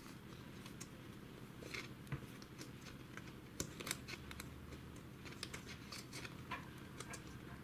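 Faint, scattered light clicks and scratches of fingers pressing a thin wire into the channels of a Samsung laptop's plastic bottom case.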